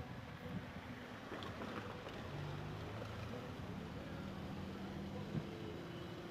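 Steady low hum of a car driving in traffic, engine and tyre noise heard from inside the moving car, with a short tap near the end.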